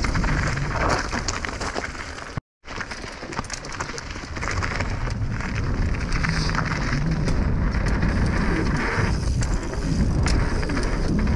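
Mountain bike riding fast down a dirt jump trail, heard from a bike-mounted action camera: wind rushing over the microphone, tyres running on packed dirt and gravel, and the bike rattling and clicking over the bumps. The sound cuts out completely for a moment about two and a half seconds in.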